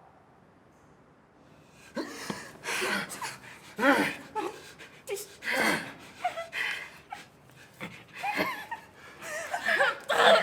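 Near silence for about two seconds, then laughter: short breathy bursts of snickering and chuckling.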